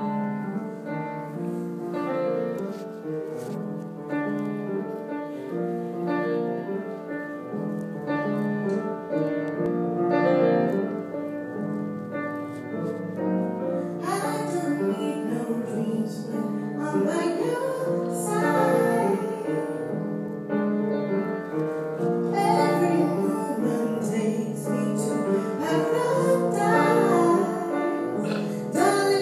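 A live band playing: grand piano and upright double bass, filling out about halfway in with cymbals and a woman singing into a microphone.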